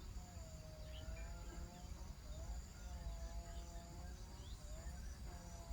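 Faint outdoor bird calls: a series of drawn-out, level calls of about a second each, with short quick chirps above them, over a steady high-pitched insect drone and a low rumble.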